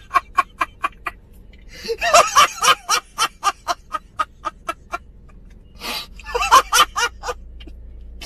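A man laughing hard in three long fits of quick ha-ha bursts, about four or five a second.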